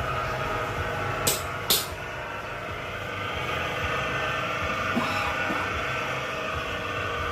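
100-litre soap mixer machine running, a steady motor hum with several even tones. Two sharp knocks come a little over a second in, under half a second apart.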